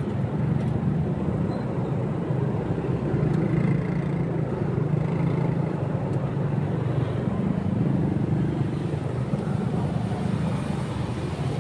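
A motorcycle engine running steadily on the move, a continuous low hum that drifts a little in pitch with the throttle.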